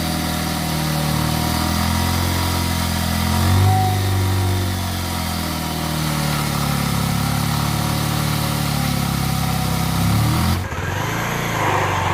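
Bajaj Pulsar 150 motorcycle's single-cylinder engine running and being revved, its pitch rising and falling a few times. About ten and a half seconds in, the sound changes abruptly.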